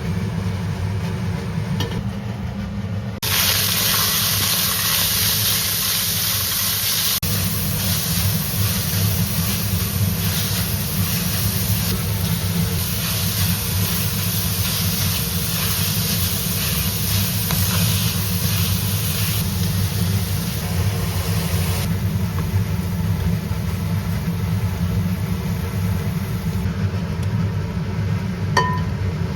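Food sizzling in a hot pan, starting suddenly about three seconds in and stopping suddenly later on, over a steady low hum.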